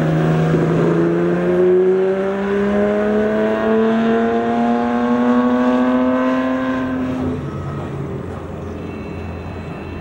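Ferrari 250 GT SWB Breadvan's 3-litre V12 accelerating hard, its note rising steadily in one long pull. About seven seconds in the note breaks off and falls away, leaving a quieter engine sound as the car moves off.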